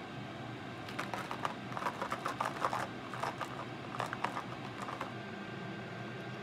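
Small metal parts clicking and rattling in a plastic tub as a hand rummages through them: a quick, irregular run of clicks starting about a second in and stopping about five seconds in.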